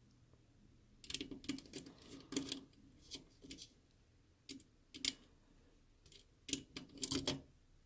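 Irregular small clicks and short scrapes of a Phillips screwdriver and fingers working on a laptop's plastic base, removing the screws that hold in its speaker.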